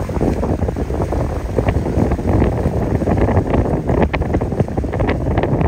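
Wind buffeting the microphone: a heavy, uneven rumble with frequent short gusts.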